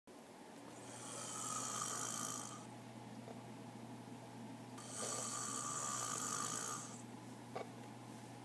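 A man snoring in slow, regular breaths: two long, hissing snores of about two seconds each, some four seconds apart, over a steady low hum.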